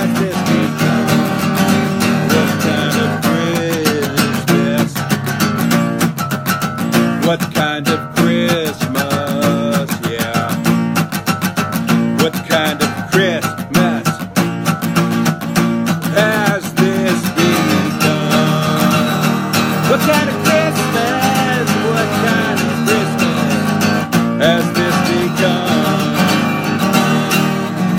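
Steel-string acoustic guitar strummed steadily, with a man's voice singing over it at times.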